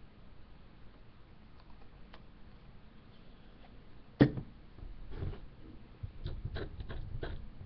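A sharp knock a little after four seconds in, then a stone pestle scraping and clicking irregularly against the inside of a stone mortar as the eyeliner mixture is stirred and ground.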